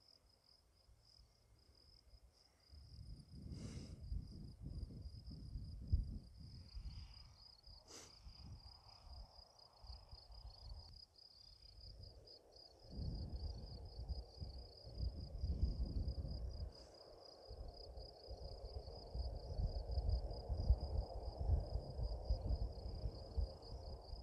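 Insects chirping steadily in a rapid, even pulse. From about three seconds in, wind gusts rumble on the microphone, growing heavier about halfway through.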